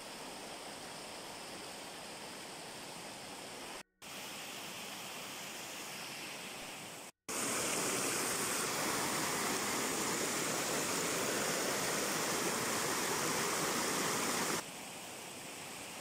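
Steady rush of flowing stream water. It drops out twice briefly, about four and seven seconds in, and is louder from there until near the end.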